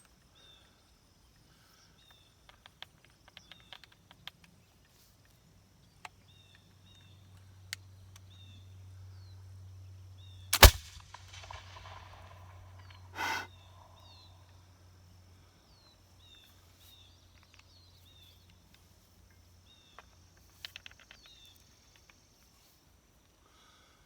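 A black-powder flintlock pistol firing once, a single sharp, very loud shot with a short ringing tail about ten seconds in, followed by a shorter second noise a couple of seconds later. Birds chirp faintly around it.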